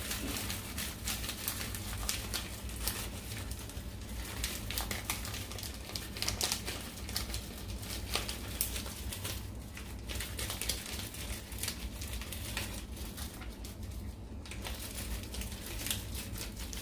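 Plastic food packaging crinkling and rustling as it is handled, a dense run of small crackles.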